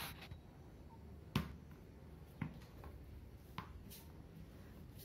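A few short, sharp taps and knocks, about a second apart, the first the loudest: a small ball struck and bouncing on a concrete floor as a kitten bats at it.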